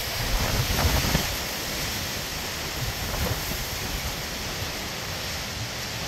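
Strong gusting wind rushing through trees and shrubs, with gusts buffeting the microphone in the first second or so, then a steadier rush.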